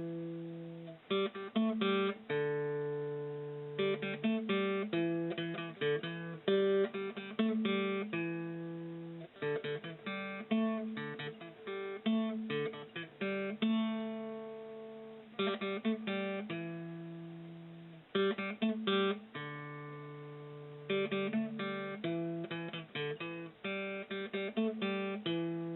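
Background music: acoustic guitar playing a run of strummed and picked chords, each chord ringing out and fading before the next.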